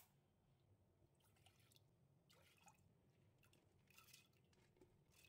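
Very faint clatter and drips as split toor dal is tipped from a steel plate into water in a pressure cooker: a few soft clicks and wet sounds scattered through.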